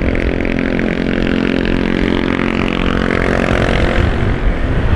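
Motorcycle engine running steadily in slow traffic, with its note rising briefly about three seconds in.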